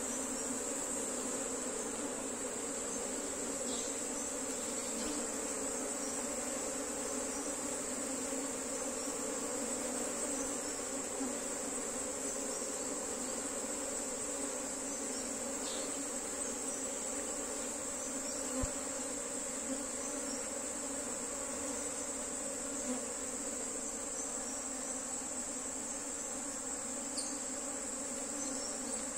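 A colony of honeybees humming over the exposed top bars of an opened hive: a steady, even drone, with a steady high-pitched whine alongside and one brief click about two-thirds of the way through.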